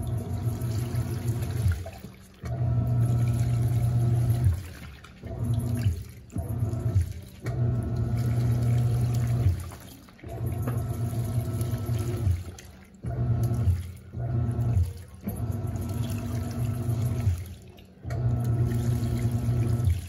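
Panasonic 14 kg top-loading washing machine in its wash agitation: the motor hums in strokes of one to two seconds with short pauses between, while water and suds slosh around the load.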